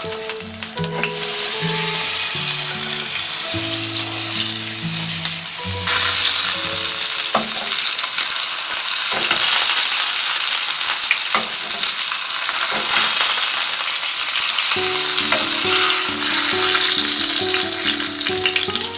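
Tied lamb shoulder searing in hot olive oil in a frying pan, sizzling steadily; the sizzle jumps louder about six seconds in, with a few knocks as the meat is turned.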